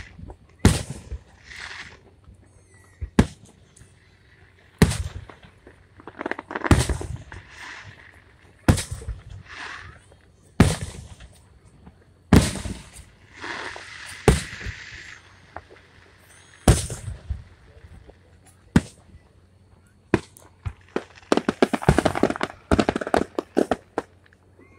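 Aerial firework shells bursting, one sharp boom about every two seconds, each dying away in an echo. Near the end comes a quick string of many bangs and crackles.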